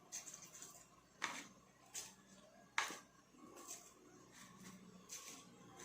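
Faint clicks and taps from handling plastic food containers, with three sharper clicks about a second apart near the start.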